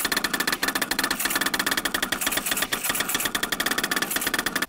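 FDM 3D printer mid-print: its stepper motors drive the print bed and head back and forth in quick, jerky moves. The sound is a rapid, uneven stutter of ticks over a steady high whine.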